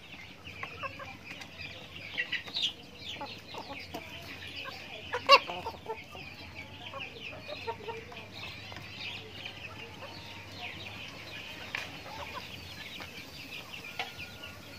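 Young chickens clucking and peeping continually while feeding. A single sharp knock about five seconds in is the loudest sound.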